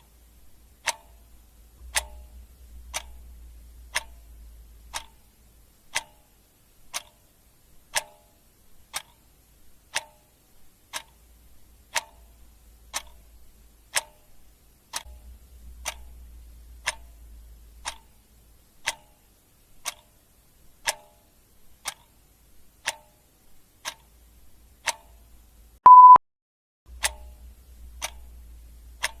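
Clock ticking steadily, one sharp tick about every second. About 26 seconds in comes one short, loud, high beep.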